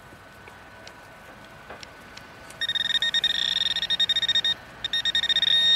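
Handheld metal-detecting pinpointer probe beeping in fast, high-pitched pulses as it is pushed into a clod of soil, starting about two and a half seconds in, pausing briefly, then sounding an almost continuous tone near the end: it is picking up a buried metal target close to its tip.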